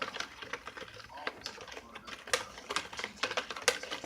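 Rapid, irregular clicking and tapping of a utensil against a bowl while stirring volcano-kit plaster into water.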